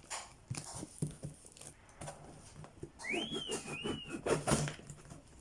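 Plastic packaging of a shipping parcel being handled and torn, with scattered clicks and crinkling. About three seconds in, a short high whistle-like call rises and then wavers for just over a second.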